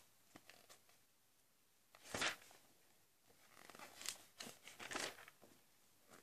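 Paper rustling as magazine pages are handled and turned: one sharp rustle about two seconds in, then a run of softer rustles.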